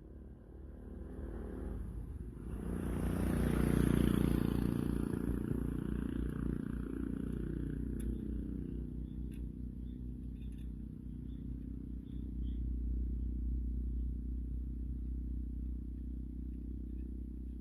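Vehicle engine running: it revs up to a peak about four seconds in, then eases back to a steady idle, with a few faint ticks in the middle.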